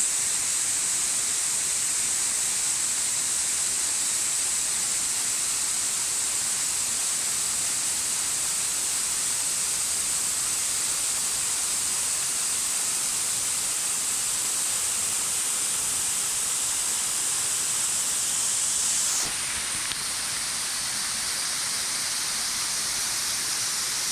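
Waterfall pouring, a steady hiss of falling water strongest in the high range. About nineteen seconds in it shifts abruptly and turns slightly quieter.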